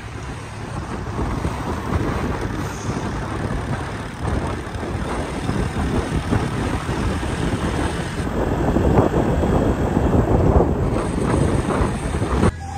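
Wind rushing over the microphone, mixed with a vehicle's running and tyre noise, while travelling along a paved road.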